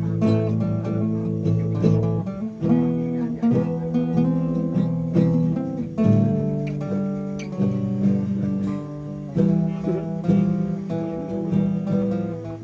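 A guitar being played: chords strummed with many quickly changing notes, ringing on between strokes.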